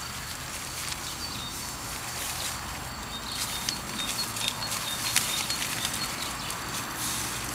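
Puppies moving about in a nylon play tunnel: scattered light rustles and scratches of paws and fabric, with a row of faint, short, high chirps in the background.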